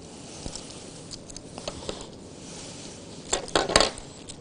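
Gloved hands pressing and spreading sticky date paste over dough on a wooden board: soft rustling, squishing and small clicks, with a louder short burst of handling noise about three and a half seconds in.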